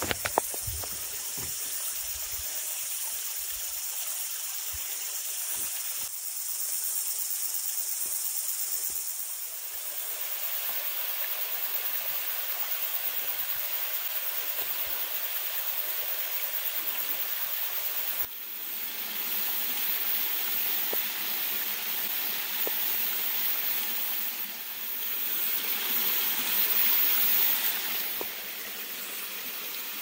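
Small waterfall splashing into a rock pool: a steady rushing hiss of falling water, which changes abruptly about two-thirds of the way through.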